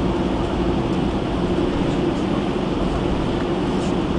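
Steady cabin noise inside an Airbus A320 taxiing on the ground: the engines' even low drone mixed with the rumble of the rolling wheels.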